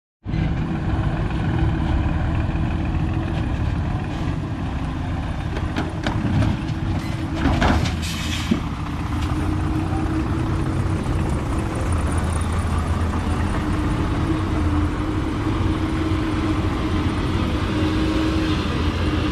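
Heavy diesel engines of a Doosan excavator and ten-wheel dump trucks running steadily while loading soil, with a short burst of clattering, hissing noise a little before halfway.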